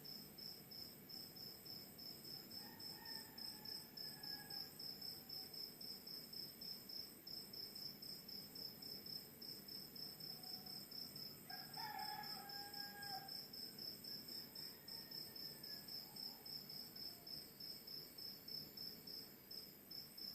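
Crickets chirping in a steady pulsing trill over the low wash of ocean surf, with a rooster crowing in the distance: faintly about three seconds in, more clearly around twelve seconds, and faintly again near sixteen seconds.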